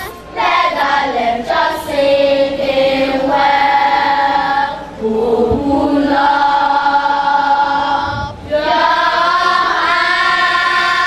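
Choir singing sustained notes, the phrases broken by short pauses about five and eight seconds in.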